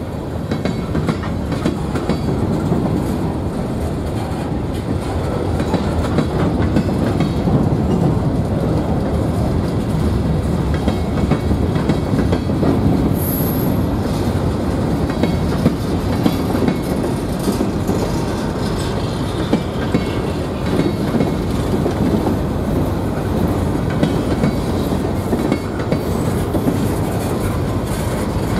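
Freight train cars (covered hoppers, boxcars and gondolas) rolling steadily past, their wheels clattering over the rail joints in a continuous rumble.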